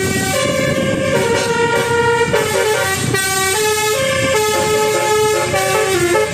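Basuri telolet bus horn playing a continuous multi-note tune, its tones stepping from note to note every fraction of a second, over a steady low noise.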